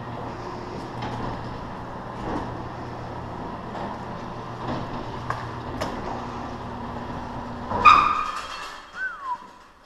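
Chain-drive garage door opener running steadily as the door travels down, its drive chain loose. The run ends almost 8 s in with a loud clank as it stops, followed by a short falling squeak.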